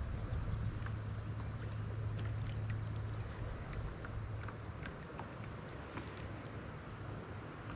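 Steady wash of water and wind noise around a fishing kayak on a river, with a low hum that fades after about three seconds and a few faint scattered ticks.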